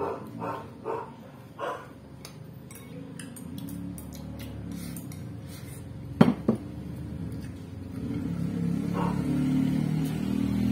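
Chopsticks clinking against a ceramic rice bowl during a meal, with scattered light clicks and two sharp knocks about six seconds in.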